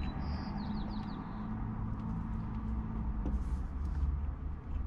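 Steady low rumble of a car engine idling. A bird chirps a quick run of descending notes near the start.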